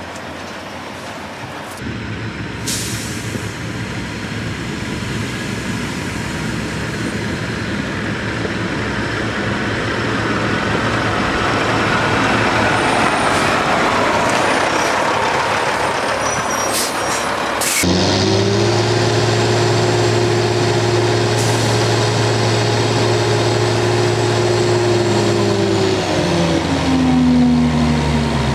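Heavy diesel engine of a loaded logging truck working under load through soft ground, the noise building over several seconds. It changes abruptly to a steady engine note, which drops in pitch near the end.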